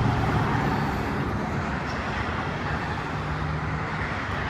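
Road traffic passing: a vehicle's engine and tyre noise fading away during the first second, then a steady rush of traffic with another engine drone near the end.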